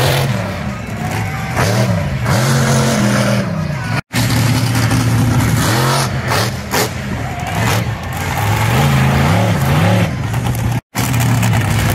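Monster truck engine revving hard, its pitch climbing and falling again and again as the truck runs at and jumps a dirt mound, with a few sharp knocks about six to seven seconds in. The sound cuts out briefly twice.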